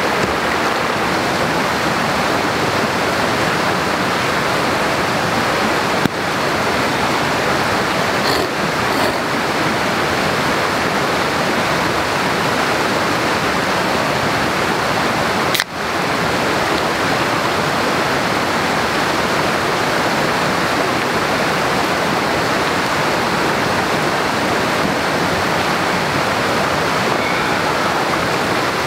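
Stream water rushing steadily over rocks, a loud, even rushing sound broken briefly twice.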